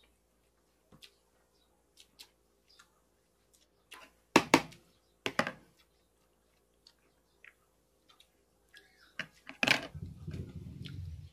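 Quiet eating at a table: scattered small clicks and tapping, with sharp clinks of tableware about four and five seconds in and again near ten seconds. A low rumble starts near the end.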